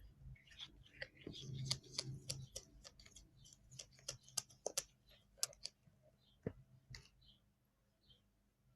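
Faint, irregular light clicks and taps of a stirring utensil and container being handled while mixing glue and water for slime, thinning out after about six seconds with two sharper knocks near the end.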